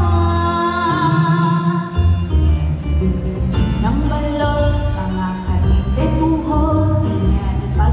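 A woman singing Tagalog parody lyrics into a microphone over a pop backing track, with a short break in the vocal line about halfway through.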